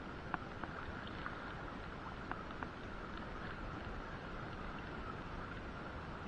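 Water lapping against a small boat's hull with a steady wash of wind and sea, and a few light ticks in the first half.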